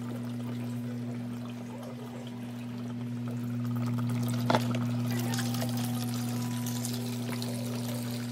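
Aquarium filter running: water trickling and splashing over a steady low motor hum, with a single sharp click about four and a half seconds in.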